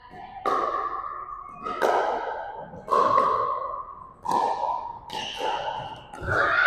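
Pickleball paddles hitting a plastic ball back and forth in a rally: a string of sharp pocks about a second apart, each ringing on in the echo of a large gymnasium.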